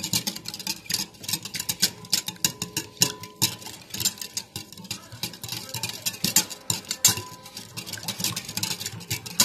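Wire whisk beating a thin batter of eggs, milk and oil in a bowl: rapid, rhythmic clicking of the wires against the bowl with wet slapping of the liquid.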